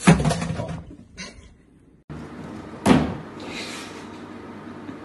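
A pop-up toaster springing up with a sharp clack, followed by a smaller knock about a second later. Another single sharp knock comes near the middle, followed by a brief hiss.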